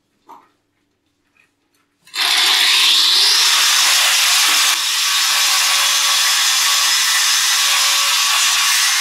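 Angle grinder starting about two seconds in and then cutting steadily, trimming down a part of a concealed shower mixer so it will sit flush with the tile.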